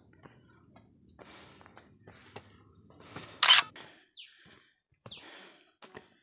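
Footsteps scuffing and crunching on rock and gravel, with clicks of camera handling and a loud brief rush of noise about three and a half seconds in. From about four seconds, a bird calls with short falling chirps, roughly one a second.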